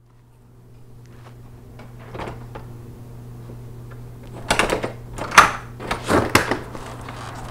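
A steady low hum fades in. A couple of light knocks come about two seconds in, then from about four and a half seconds a cluster of louder knocks and rattles, like a door or cupboard being handled.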